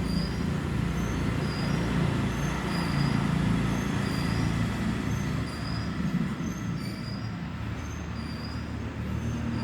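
Kapalbhati breathing: short, forceful exhalations repeating about once a second, over a steady low background rumble.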